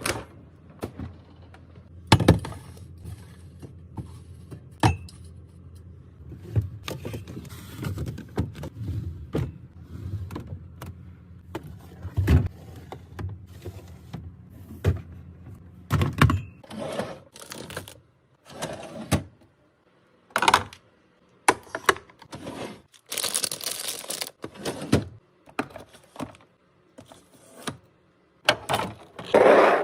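Handling sounds from restocking a fridge: a string of irregular clicks, knocks and taps of containers and packaging being picked up and set down, with short rustles between them. A faint steady low hum runs under roughly the first half.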